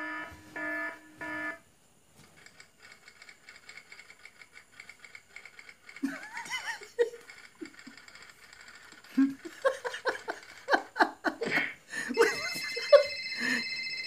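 A mix of short sound effects: a few pitched beeps at the start, faint rapid ticking, then a run of short laugh-like bursts, ending in a phone ringtone that cuts off suddenly.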